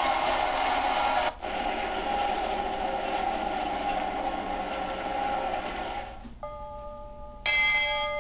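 Toy train running on its track with a steady whirring motor-and-gear clatter; for the last couple of seconds a chord-like train whistle sounds, starting again a second later.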